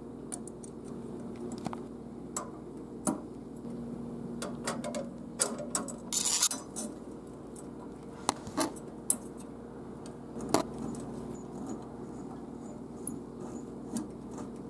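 Metal chandelier parts clicking and clinking as the curved chrome arms are handled and fastened with small ball-headed screws, with a short scrape about six seconds in. A steady low hum runs underneath.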